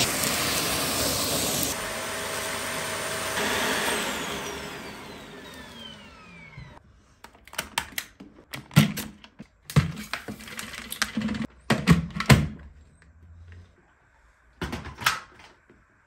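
Dyson Ball Animal upright vacuum cleaner running, then switched off, its motor whine falling in pitch as it winds down over a few seconds. Then come a series of sharp plastic clicks and clunks as parts of the machine are handled.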